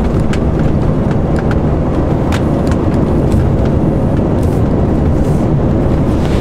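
Lorry engine and tyre noise heard from the cab while driving at a steady speed, a constant low rumble with a few faint clicks.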